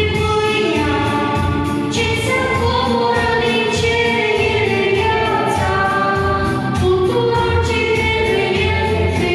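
A brass horn playing a melody of held notes over an electronic keyboard accompaniment with a steady beat.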